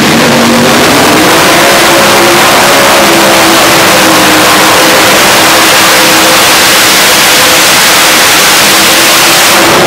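Modified pulling tractor with several supercharged engines at full throttle, dragging a weight-transfer sled. The exhaust is very loud and rises in pitch over the first second or so, then holds steady.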